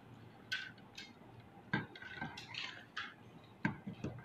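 Scattered light clicks and taps of a glass bowl and a steel bowl knocking together as dry flour mix is tipped from one into the other.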